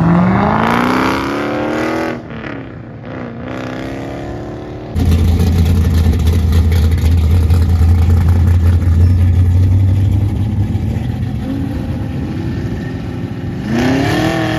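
A Dodge Challenger accelerates hard, its engine pitch climbing, then drops and fades as it drives off. After a cut, a third-generation Chevrolet Camaro idles close by with a strong, steady low hum. Its engine revs up near the end as it pulls away.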